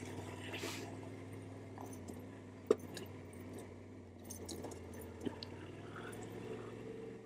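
Yamaha Ténéré 700's parallel-twin engine running quietly and steadily at low revs as the bike rolls down a loose gravel track, with a few sharp clicks, the loudest about two and a half seconds in.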